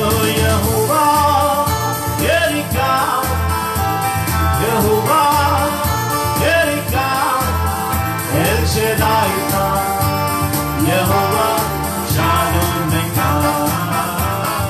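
A man and a woman singing an Urdu Christian worship song together over instrumental backing.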